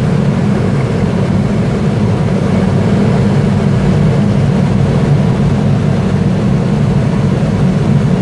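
Steady, loud rush of air around an engineless aerobatic glider, heard in the cockpit.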